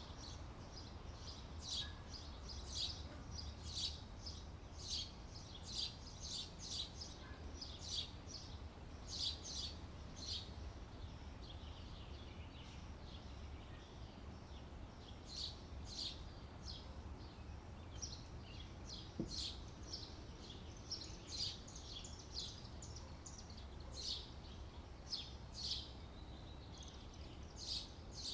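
Small birds chirping in short, irregular calls throughout, several at a time in places, over a faint steady low rumble of outdoor background noise.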